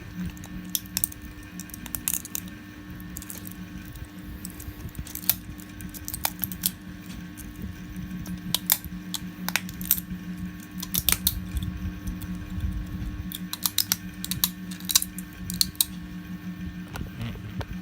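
3D-print support plastic being snapped and clipped off a printed model with pliers and cutters: irregular sharp clicks and snaps, bunched several a second at times, over a steady low hum.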